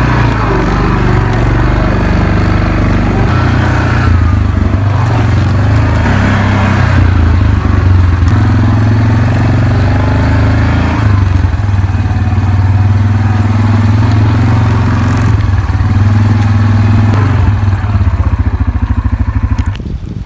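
Small off-road vehicle engine running as it is ridden, its pitch rising and falling with the throttle. Near the end it drops to a slower, lumpier beat and fades as the vehicle comes to a stop.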